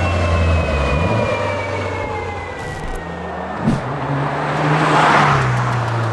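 A 2022+ Subaru WRX's turbocharged flat-four, fitted with an unequal-length header, running through its exhaust. A whine falls slowly in the first half, then the engine note rises and a rush of noise swells about five seconds in as the car drives by.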